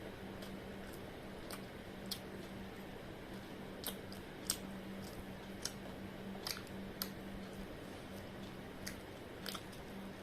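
A person chewing fried momos, with scattered sharp crisp crunches and mouth clicks at irregular intervals over a steady low hum.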